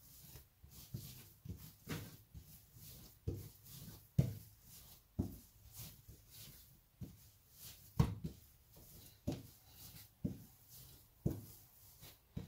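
Dough for meat pie being kneaded by hand on a floured countertop: soft thuds and pats of the dough pressed and turned against the counter, about one or two a second, with two louder thumps about four and eight seconds in.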